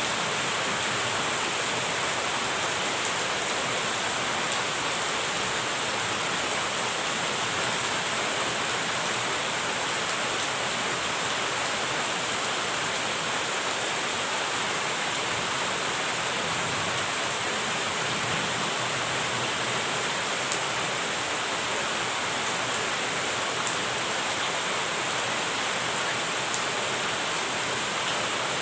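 Steady rain falling, an even hiss with a few faint single drop ticks.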